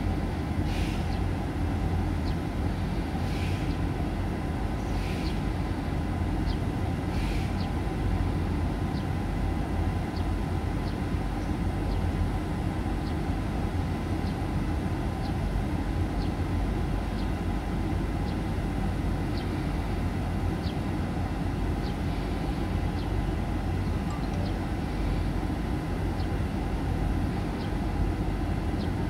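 A steady low rumble with faint short ticks about once a second.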